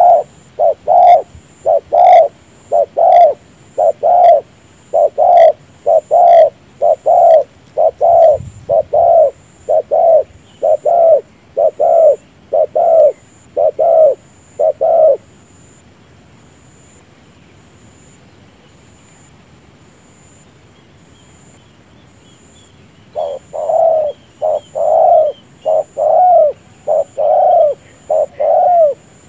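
Spotted dove's bowing coo: short, throaty coos repeated one to two times a second. They stop for about eight seconds midway, then start again.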